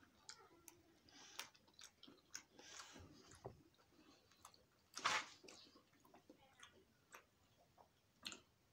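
Faint close-up chewing and mouth sounds of a person eating a mouthful of scrambled eggs, with scattered soft clicks and a louder burst about five seconds in.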